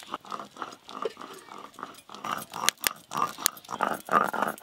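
Stone muller worked back and forth on a flat grinding stone (shil-nora), grinding a wet paste. It makes a quick run of rasping strokes, about four or five a second, with a few sharp knocks near the middle, and is louder in the second half.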